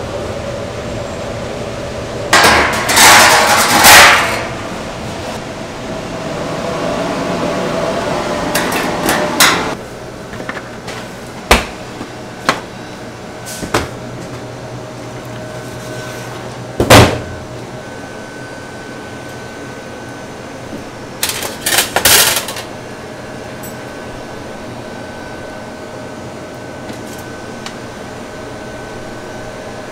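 Metal clatter and knocks: steel meat hooks and a roasting-oven rack rattling, and metal trays set down on a stainless-steel counter. There are a few clattering runs, several single sharp knocks and one loudest knock a little past halfway, over a steady fan hum.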